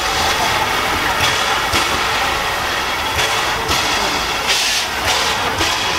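A1X Terrier 0-6-0 tank steam locomotive moving off slowly, giving soft, irregular exhaust chuffs, often in pairs, over a steady hiss and rumble.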